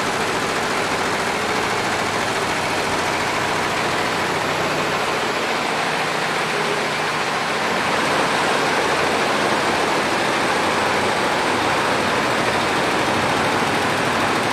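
A 15-head Richpeace multi-head embroidery machine running, a loud, steady, dense mechanical noise without pauses.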